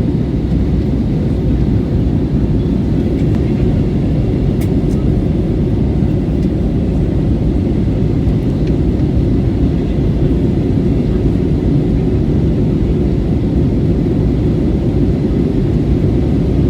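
Steady low rumble of a jet airliner's engines and airflow, heard from inside the passenger cabin.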